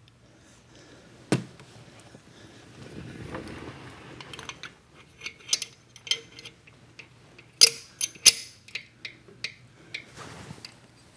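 Small metallic clicks and taps as a pushrod is fed down into the Aermacchi engine's cylinder head and seated: a sharp click about a second in, a short scrape, then a run of clinks, the loudest a little over two-thirds of the way through.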